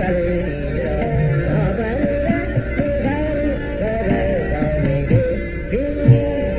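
Hindustani classical music in Raag Hamsadhwani: a melody line that slides and curls through ornaments, with short low notes sounding underneath.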